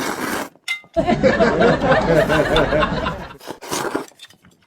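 A snickering laugh, pitched and rapidly wavering, lasting about two and a half seconds from about a second in. Short noisy bursts come just before and after it.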